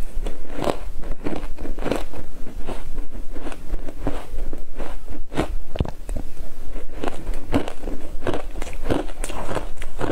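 Close-miked crunching and chewing of a mouthful of scraped freezer frost, with many short, irregular crunches one after another.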